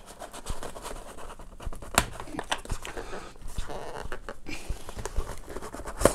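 Cardboard packaging and a soft cloth pouch scraping and rustling as a webcam is worked out of its box insert by hand. A scatter of small knocks and clicks runs through it, the sharpest about two seconds in.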